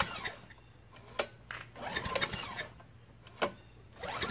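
Recoil pull-starter on a 5 hp Craftsman chipper-vac engine being pulled about twice, each pull a second-long whir that rises and falls in pitch as the engine turns over without firing, with sharp clicks between pulls. A cold start after long storage that is not catching.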